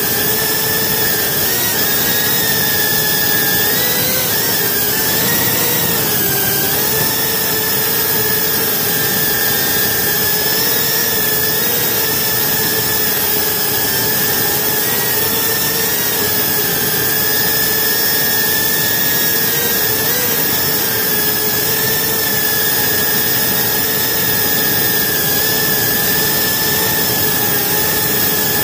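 A GEPRC Cine Pro 4K cinewhoop FPV drone's brushless motors and ducted propellers whine steadily in flight. The pitch wavers briefly a few seconds in as the throttle changes, then holds.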